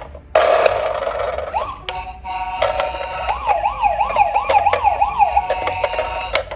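Electronic toy siren from a toy police car or ambulance, a fast up-and-down wail about three times a second, with clicks and clatter around it. A burst of rattling noise comes first, before the wail.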